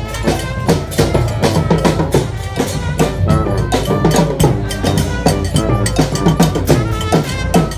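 Live street band playing: drums beating a fast, steady rhythm under held horn notes.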